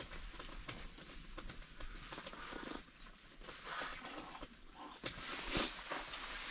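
Faint, scattered rustles and soft clicks of a person eating: chewing and handling food and wrappers at a small table.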